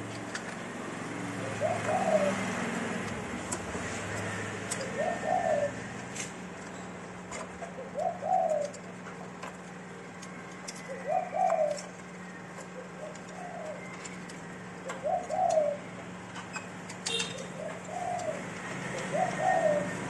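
A dove cooing over and over, a short rising-and-falling coo every two to three seconds. Under it are light clicks of plastic parts being handled and a steady low hum.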